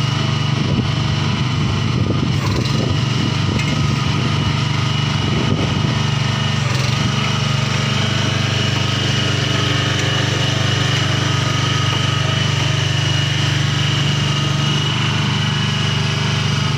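Small Honda petrol engine of a one-ton ride-on cricket pitch roller with hydraulic drive, running steadily as the roller drives along, with a thin steady high whine over the engine note.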